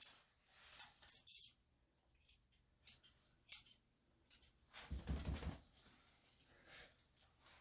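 Grooming scissors snipping a Shih-Tzu's coat in short, irregular cuts, the sharpest and closest together in the first second and a half. A brief low rumbling noise comes in about five seconds in.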